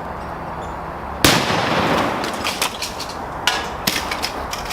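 Fireworks packed into a Dell computer going off: one loud bang about a second in, then a run of sharp crackling pops.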